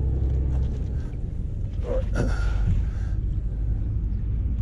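Steady low rumble of wind on the microphone. About two seconds in comes a short hissing swish of water as a whitebait scoop net is swept through the river shallows.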